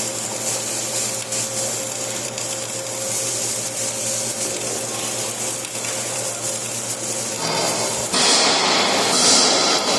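Flux-cored arc welding: a steady crackling, hissing arc over a constant electrical hum, growing louder and brighter about eight seconds in.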